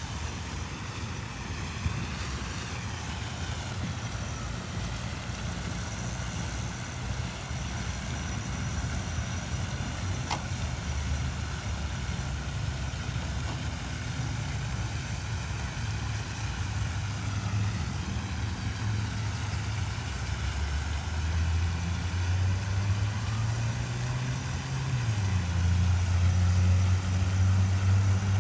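Low, steady hum of an engine running, growing louder over the last several seconds, with its pitch rising a little and then holding near the end.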